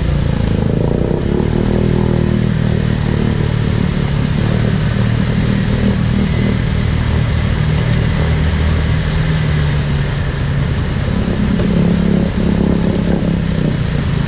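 ATV engine running steadily, its revs rising and falling a little.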